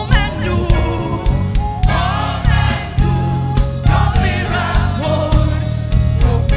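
Live gospel praise music: a woman sings the lead into a microphone over electric bass, keyboard and a steady beat, all amplified.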